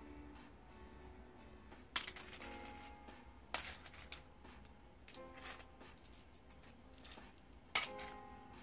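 Loose plastic Lego bricks clicking and clattering as hands rake and pick through a pile. There are four sharper clatters, the loudest about two seconds in and near the end. Faint music plays underneath.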